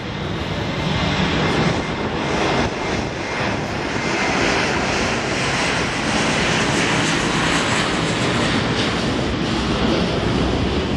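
Boeing 777-300ER's twin GE90-115B turbofans at takeoff power on the takeoff roll: a loud, steady jet roar with a deep rumble under it. It swells over the first couple of seconds as the airliner comes past, then holds.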